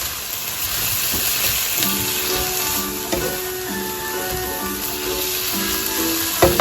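Food frying in a pan, a steady sizzling hiss, with a couple of sharp knocks near the end; light background music with a simple melody plays over it.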